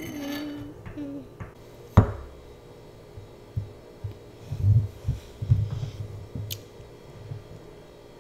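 Metal spoon clinking and scraping in a ceramic bowl of rice as a small child eats. There is one sharp clink about two seconds in, a few dull low thumps around the middle, and a lighter clink later.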